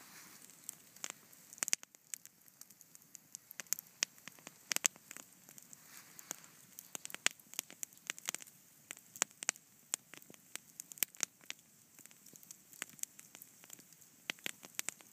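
Wood campfire burning and crackling, with many irregular sharp pops and snaps over a faint hiss.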